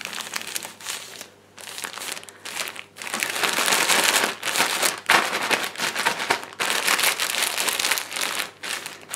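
IKOO Infusions thermal hair treatment wrap, a foil-like cap, crinkling as hands press and tuck it around the head. The crinkling comes in uneven bouts: lighter with a brief lull for the first few seconds, then fuller and more constant from about three seconds in.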